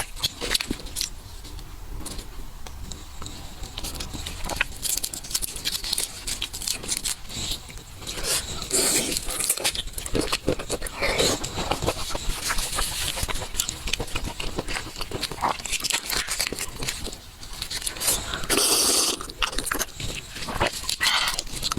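Close-miked eating sounds of a person chewing and biting seafood: wet clicks, crunches and scrapes throughout, with louder bursts about nine and nineteen seconds in.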